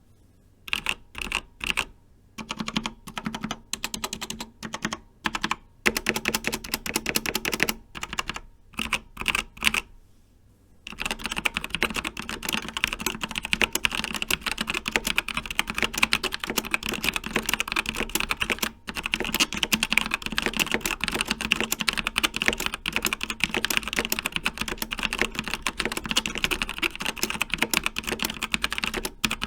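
Logitech G Pro mechanical keyboard with GX Brown tactile switches being typed on. For the first ten seconds or so there are short bursts of keystrokes with pauses between them; after that the typing is continuous and fast.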